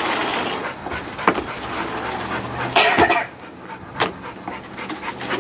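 Blue-nose pit bull panting while lunging at a balloon, with a sharp knock about a second in, a brief loud rush of noise about three seconds in, and another knock near four seconds.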